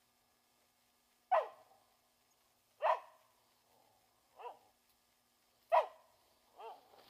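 Hunting dog barking, five single barks a second or so apart; the third and fifth are quieter. It is barking at something it has found.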